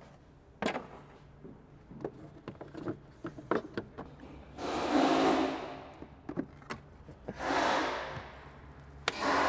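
Light plastic clicks and knocks as the air filter and plastic airbox lid are handled and seated on an Isuzu D-Max's air intake. Later come three drawn-out rubbing sounds, each about a second long, as hands work over the airbox and rubber intake hose.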